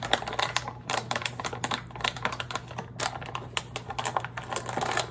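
Soft plastic bag of powdered sugar crinkling as it is gripped and handled, a dense, irregular run of crackles.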